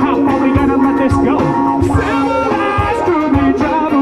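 Live band playing funky music: drums keep a steady beat under held notes from a horn section, with electric guitar.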